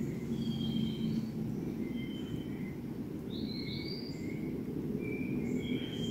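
Forest birds calling: short, high whistled notes, some rising, come every half second or so. A steady low rumble runs underneath.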